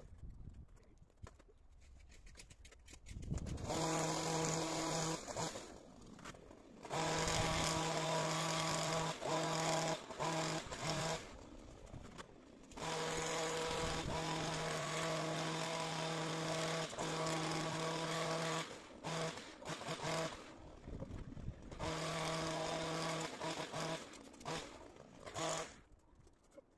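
Petrol hedge trimmer engine run up to full throttle while cutting hedge, in four long bursts of a few seconds each, dropping back to a quiet idle in between.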